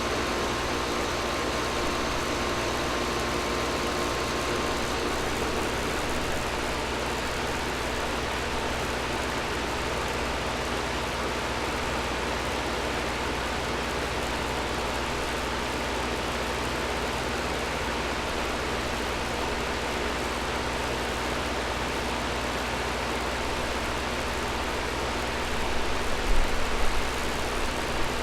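Air conditioner running steadily: a constant rush of air over a low hum, with a few low bumps near the end.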